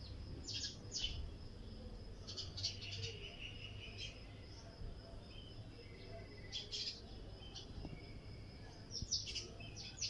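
Sparrows chirping in scattered bursts of short, high chirps, busiest around three seconds in and again near the end, over a faint steady high tone.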